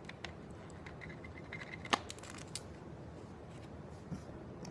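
Lego bricks being handled and pressed into place: a few faint plastic clicks and ticks, with one sharper click about two seconds in.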